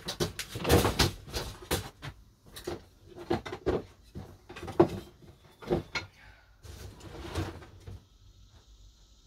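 Irregular knocks, clatters and scrapes of household items being picked up, shifted and set down by hand, going on for about eight seconds, with the sharpest knock a little under five seconds in.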